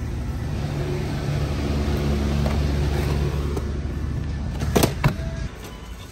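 Shopping cart rolling with a steady low rumble, then two quick knocks about five seconds in as a box is taken from the shelf and set into the wire cart. After that the rumble drops away.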